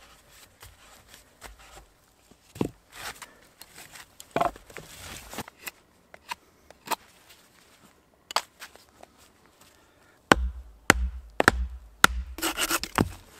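Knife shaving a green-wood stool leg in scattered strokes. In the last few seconds comes a run of heavy wooden knocks with low thuds as the leg is driven into the augered hole in the natural-growth branch.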